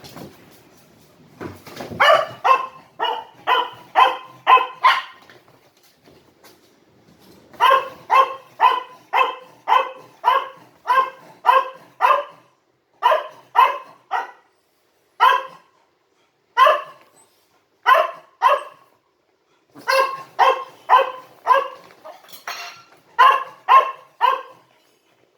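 A dog barking over and over in quick runs of about two barks a second, with a slower stretch of single barks in the middle.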